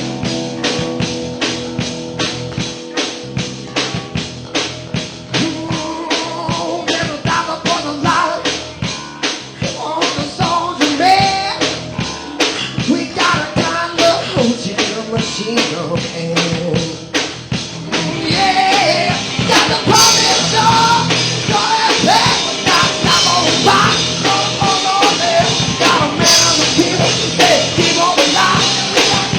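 Live rock band playing an instrumental passage: a drum kit keeps a steady fast beat under a bending lead melody. The band gets louder about two thirds of the way in, with cymbal crashes twice.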